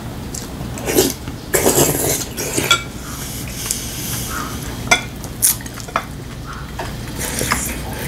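Chopsticks and a spoon clinking and scraping against ceramic bowls during a meal: scattered sharp clicks, with a longer run of clatter about one and a half seconds in.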